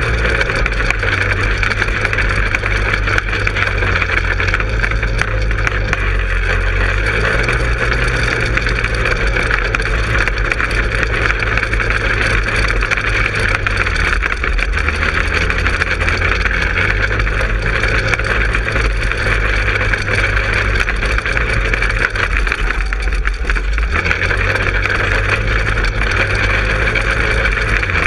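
Manco Helix 150 go-kart engine running under way. The engine note eases off briefly twice, about halfway through and near the end.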